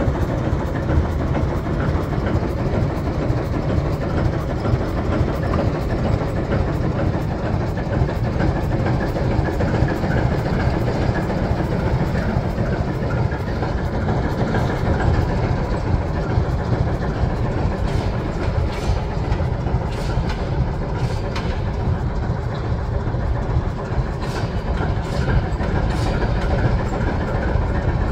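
The diesel engine of a 1946 ALCO S1 switcher running steadily as the locomotive rolls slowly along the track, a six-cylinder ALCO 539. Sharp clicks and clanks of wheels and running gear come through in the second half.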